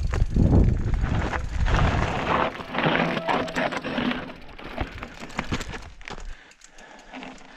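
Mountain bike rolling down a rocky, loose-gravel singletrack: tyres crunching over stones and the bike rattling with many small knocks, over a low wind rumble on the helmet camera's microphone. It grows quieter after about six seconds, leaving scattered clicks.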